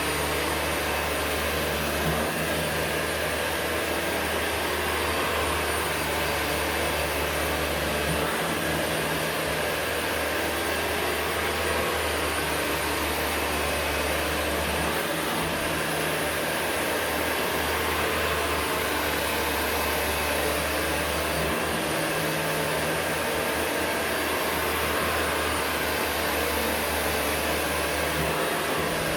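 Vacuum cleaner running steadily, with a low hum underneath that drops out briefly a few times.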